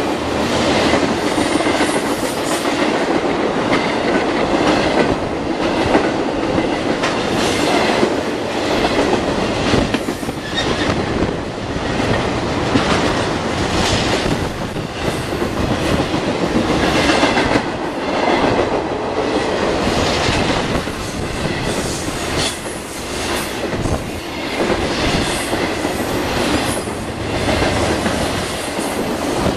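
Intermodal freight train of flatcars carrying truck trailers rolling past at close range: a steady rumble of wheels on rail, with clacks every few seconds as wheels pass over rail joints.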